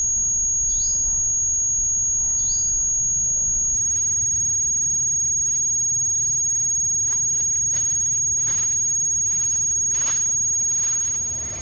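A steady high-pitched tone that swells in and fades away about a second before the end, with two short falling chirps in the first three seconds.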